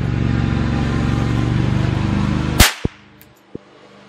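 A single .22 LR gunshot from a Ruger 10/22 rifle firing a 40-grain Remington Thunderbolt round, about two and a half seconds in, over a steady low hum. The round clocks 1,273 feet per second over the chronograph, faster than sound. A couple of faint low knocks follow the shot.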